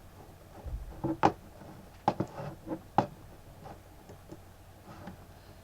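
A computer mouse clicking a handful of times at irregular intervals, as a user hunts for the button to stop a webcam recording. The loudest clicks come just after one second and at about two and three seconds in.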